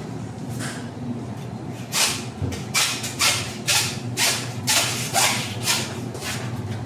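A butcher's knife making about ten quick rasping strokes, roughly two a second, over a steady low hum.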